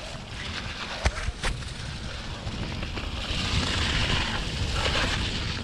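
Mountain bike riding down a leaf-covered dirt trail: tyres rolling through dry leaves and dirt with a hiss that grows louder about halfway through, over a low rumble of wind on the microphone. Two sharp knocks about a second in as the bike hits bumps.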